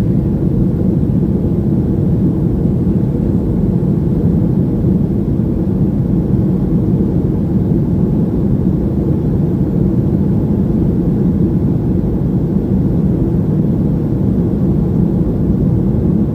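Steady low cabin noise of a Boeing 737-900 jet airliner, the engines and airflow giving an even rumble with no change in pitch.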